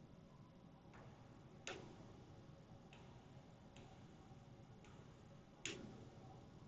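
Faint, scattered clicks, about six of them with two louder ones, of a Lightning charging cable being unplugged from and plugged back into an iPhone 7, against near silence.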